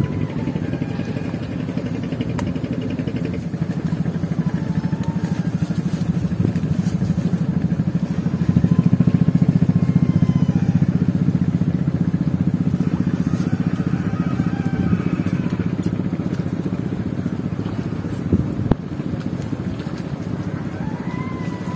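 A small engine running steadily with an even pulse, growing louder about eight seconds in and easing off again after a few seconds, like a motor passing close by.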